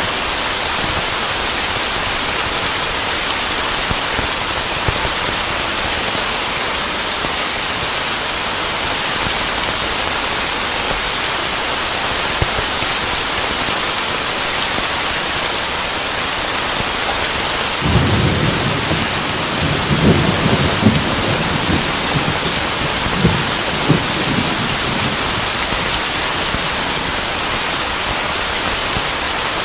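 Steady heavy rain falling, with a rumble of thunder about two-thirds of the way in that cracks several times over about seven seconds before fading back into the rain.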